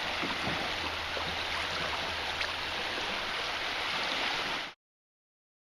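Creek water running steadily, with a few faint knocks; it cuts off abruptly to dead silence about four and a half seconds in.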